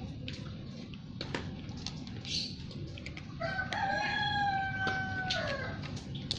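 A rooster crows once, a long level call of about two and a half seconds that starts halfway through and drops in pitch at the end. Around it come scattered sharp clicks of a cat crunching dry kibble from a bowl.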